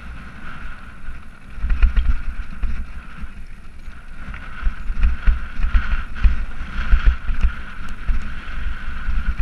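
Wind buffeting a GoPro microphone while riding downhill on a rocky dirt trail: a gusting low rumble that swells and fades, with scattered knocks and rattles from the bumps.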